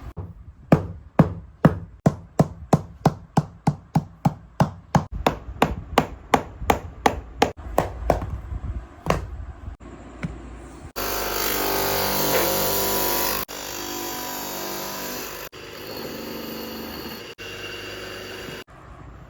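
Hammer blows on a shoe during repair, a quick even series of about three knocks a second for some eight seconds. Then a power tool runs steadily in several stretches that start and stop abruptly.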